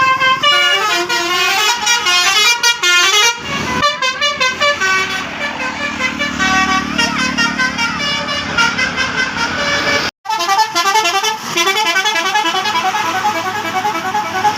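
A bus's basuri 'telolet' musical horn playing a tune of quick notes that step up and down in fast runs, with a steady low hum underneath in the middle. The horn cuts out for a moment about ten seconds in, then carries on with a quick repeating run of notes.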